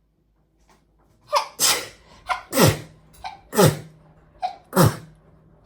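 A woman sneezing four times in quick succession, about a second apart, each sneeze preceded by a short sharp intake of breath. It is a sneezing fit set off by sniffing pepper.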